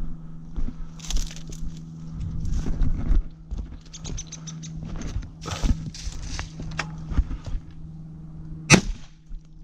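Irregular rustling and knocks of someone moving and handling gear in the field over a steady low hum, then a single loud shotgun shot near the end.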